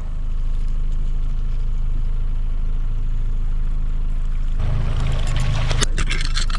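Outboard motor on a trolling boat running steadily at low speed, a continuous low hum. About four and a half seconds in, a stretch of rushing noise with a few sharp knocks joins it as the fish is netted.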